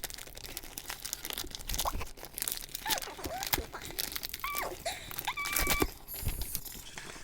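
Plastic cookie packaging crinkling and rustling as it is opened and handled, with many small clicks and taps.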